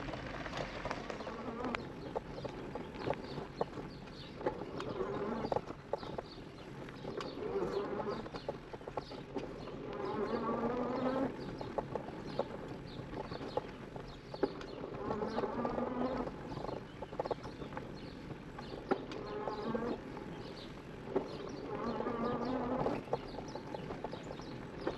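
Electric-assist motor of an e-bike whining, its pitch rising every few seconds as the bike picks up speed, with scattered clicks and knocks from the bike rolling over a dirt trail.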